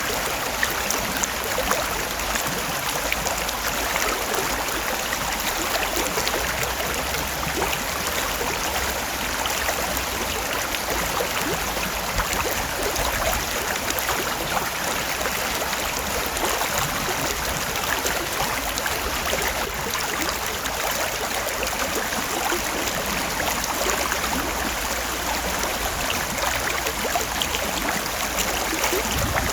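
Creek water rushing and burbling steadily over rocks.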